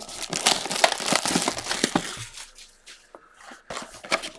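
Packaging of a Donruss Elite football card box crinkling and tearing as it is opened by hand. The sound is busiest for about the first two seconds, then eases off to a few light clicks.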